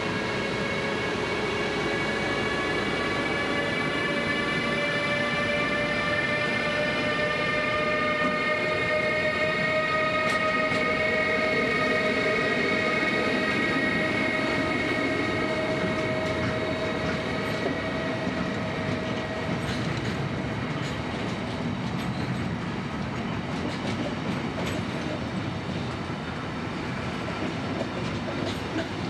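Intermodal freight train hauled by two SBB Cargo Class 193 Vectron electric locomotives rolling past, its wheels making a steady rolling rush. Several whining tones ride over it, rising slowly in pitch and fading out after about twenty seconds, with clicks from the wheels over the rails in the later part.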